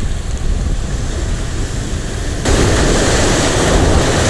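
Ocean surf washing on the shore with wind on the microphone, a steady loud rushing that swells suddenly louder about two and a half seconds in as a wave comes in.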